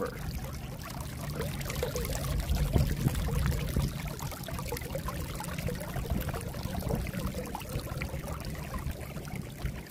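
Stormwater surging up under pressure out of two ports at the top of a dry well into a shallow stone-lined pool, a steady sound of running, bubbling water.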